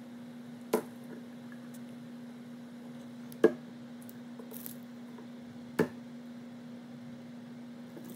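Sticky clear-glue slime being squished and kneaded by hand in a glass container, with three sharp knocks spread through, over a steady low hum.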